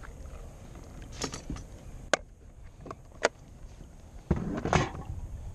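Handling noises on a plastic fishing kayak while a redfish is taken off a measuring board: a few sharp clicks and knocks, then a louder scuffle about four seconds in.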